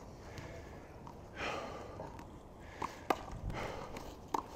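Hard breathing close to a body-worn microphone during a handball rally, with a few short sharp knocks in the second half from the ball and the players' feet on the court.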